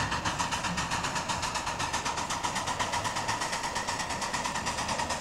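Ride-on miniature live-steam locomotive running past, its exhaust chuffing in quick, even beats, about five or six a second.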